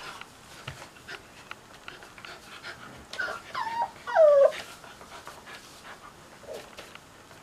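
Cocker spaniel puppy whimpering: a few short whines about three seconds in, each sliding down in pitch, the last and loudest falling furthest. Light clicks and scuffles of movement come and go around them.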